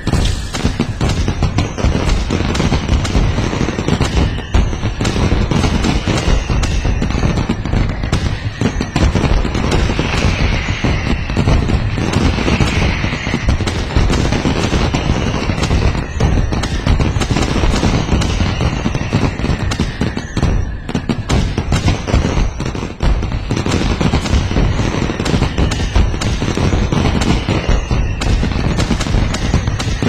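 Fireworks display: a loud, dense, unbroken barrage of bangs and crackling, with a few faint falling whistles.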